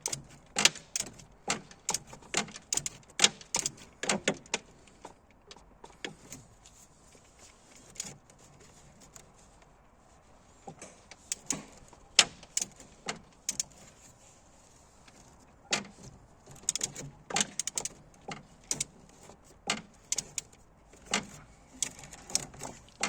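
Irregular metallic clicks and knocks from hand tools and parts being handled during an alternator pulley job, with a quieter few seconds in the middle.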